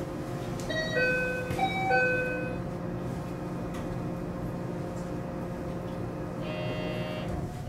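Electronic door chime on a 521 series electric train: a short melody of about four bright notes as the doors close, then a buzzing tone for about a second near the end. Both sound over the steady hum of the train's electrical equipment at standstill.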